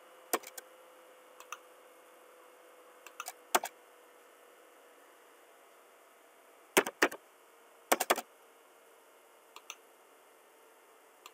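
Computer keystrokes and mouse clicks: short, sharp clicks in small groups of two or three, separated by seconds of quiet.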